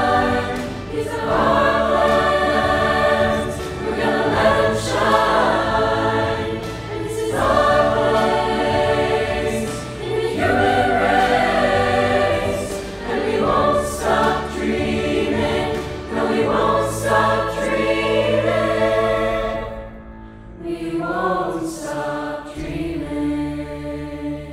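A large mixed-voice high school virtual choir, individually recorded voices mixed together, singing in harmony in phrases over a low sustained accompaniment. About twenty seconds in the full sound drops away to a softer, thinner line that fades near the end.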